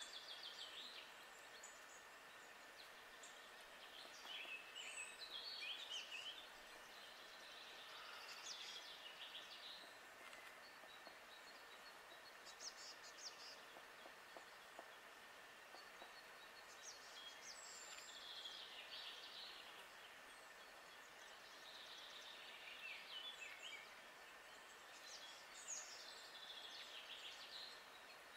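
Faint woodland birdsong: short, twittering songbird phrases come back every four seconds or so, over a quiet steady hiss.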